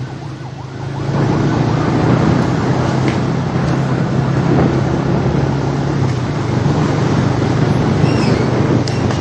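Motor vehicle being driven: a steady engine hum under a rushing noise that grows louder about a second in as it gets under way. The engine note drops slightly around six seconds in.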